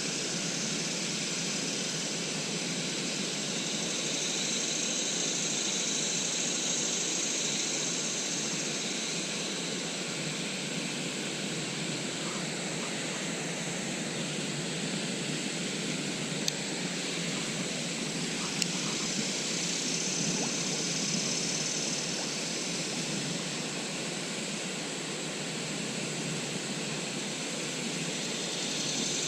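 Steady rushing of flowing stream water, with two faint clicks about midway.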